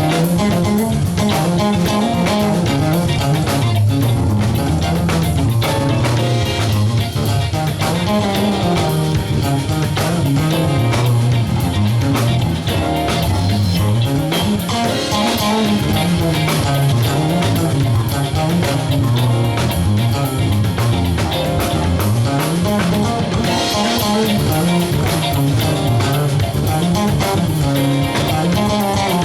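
Live band playing: electric guitar, bass and drum kit, with a walking bass line and a steady beat.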